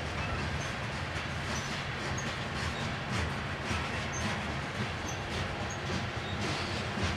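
Covered hopper cars of a grain train rolling past steadily, a continuous rumble with irregular wheel clicks over the rail joints.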